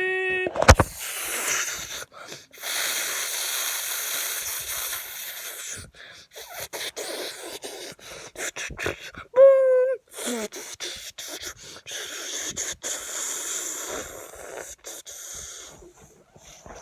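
A person's voice making long breathy hissing, static-like noises, broken by short gaps, with a short falling squeal about nine and a half seconds in. It opens with the end of a held sung note and a sharp click.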